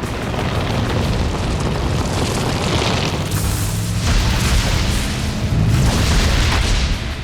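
Movie soundtrack of a lightning storm: deep thunder booms and a continuous low rumble, with score music underneath.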